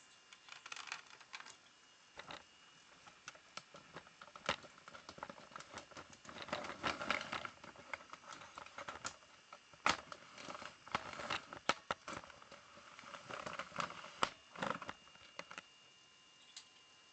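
Small parts and tools being handled on a workbench: irregular clicks, taps and rustling in clusters, with a few sharper knocks.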